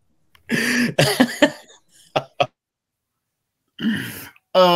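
A man coughs: a rough burst about a second long near the start, then two small clicks and a short breathy rasp just before he speaks again.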